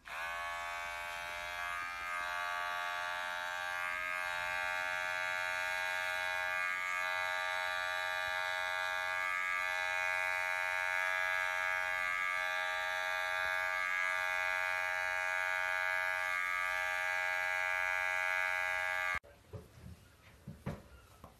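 Electric pet hair clippers running with a steady buzzing whine, spinning up at the start and dipping briefly every two to three seconds. The buzz cuts off suddenly near the end.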